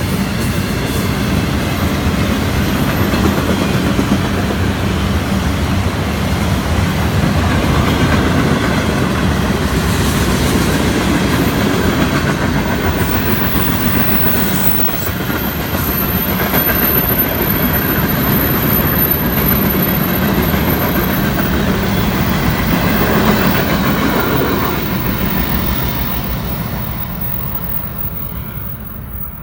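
Florida East Coast Railway freight cars rolling past with a steady rumble and clickety-clack of wheels over the rail joints, dying away over the last few seconds.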